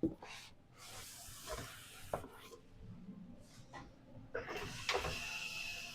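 Faint kitchen handling sounds: a few light knocks and clicks with soft rubbing and scraping.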